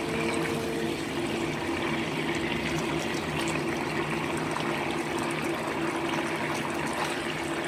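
Chicken wings simmering in a thin sauce in a nonstick pan: a steady sizzle of bubbling liquid, with a steady low hum underneath.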